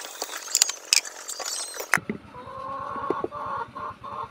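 Tap water splashing into a sink, with light metallic clinks as a stainless pressure cooker is handled. About two seconds in this stops abruptly, and a pitched sound starts, pulsing several times a second.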